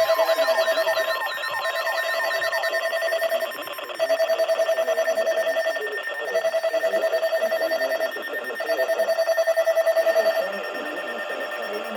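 Electronic emergency alert tones: a fluttering beep repeats in bursts of about two seconds with short gaps, over other steady and warbling alert tones. The repeating beep stops about ten seconds in.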